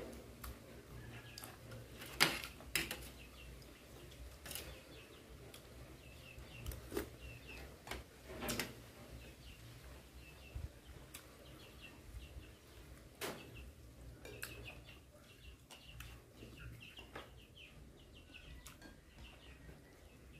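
Quiet eating sounds: chewing and a few sharp clicks, the loudest about two seconds in, with faint short chirps scattered throughout.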